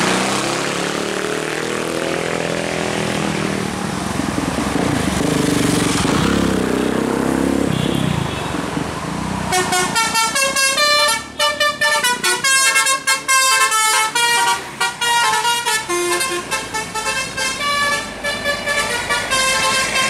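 A tour bus's diesel engine pulling uphill under load, its pitch rising as it accelerates. About halfway through, the bus's Basuri 'telolet' musical horn starts playing a quick melody of many short notes, louder than the engine.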